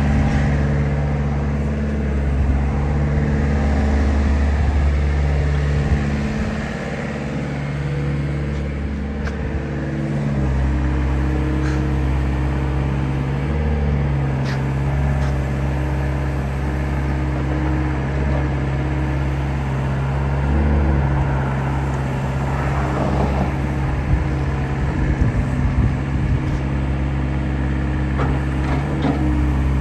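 Diesel engine of a 2013 Volvo ECR88 Plus compact excavator running steadily while the boom, arm and bucket are worked and the upper structure swings. The engine note shifts several times as the hydraulic load changes, with a few short clicks and knocks.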